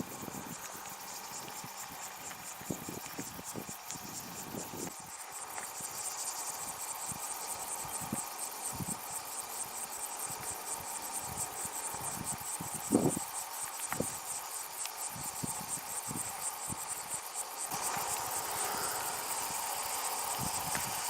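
Insects chirping in a fast, steady, high-pitched pulsing trill that grows louder after about five seconds. Soft low rustles and a light knock past the middle sit under it.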